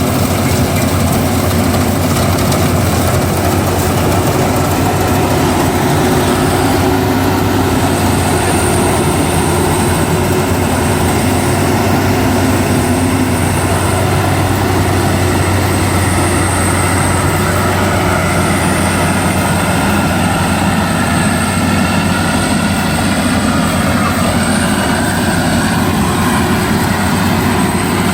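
Rice harvester running steadily at a constant, loud level, its engine hum mixed with an even mechanical clatter.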